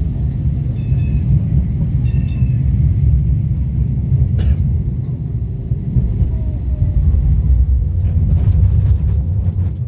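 First-generation light rail car running between stops, heard from inside: a steady low rumble of wheels on track and traction equipment. A sharp click about four seconds in and a cluster of clicks near the end, with faint short squeaks early.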